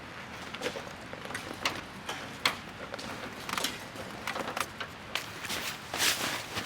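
Scattered light clicks and knocks, a few each second, over a faint steady background, with the sharpest knock about halfway through and a short rustle near the end.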